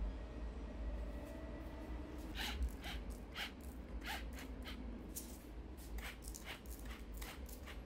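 Kitchen food-preparation noise while making tomato confit: a run of short, soft swishes or scrapes, about two a second, starting a couple of seconds in, over a low steady hum.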